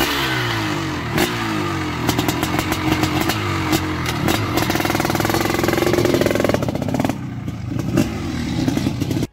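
500cc motocross bike engine running just after being kick-started, revved up and down repeatedly, then pulling away as the rider rides off near the end. The sound cuts off suddenly at the end.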